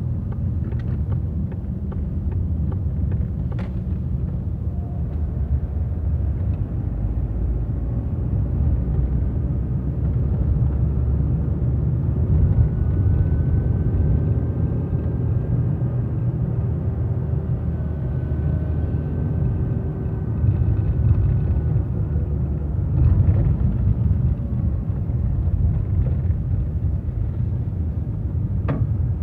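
Steady low rumble of a car's engine and tyres on the road, heard from inside the cabin while driving. A faint whine comes and goes in the middle.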